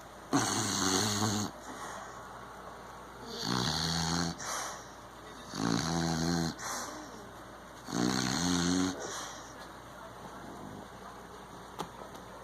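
Beagle snoring: four snores about two and a half seconds apart, each about a second long and followed by a shorter, softer breath.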